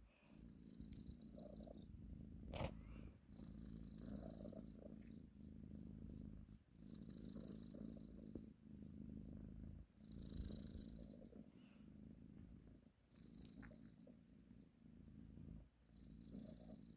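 A sleeping domestic cat purring softly, the purr rising and falling in cycles of about three seconds with a brief dip between breaths. A faint hiss rides on some breaths, and there is one small click about two and a half seconds in.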